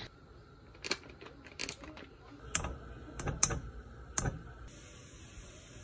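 Kitchen handling at a frying pan holding a block of tofu: about six sharp clicks and taps over four seconds, then a faint steady hiss.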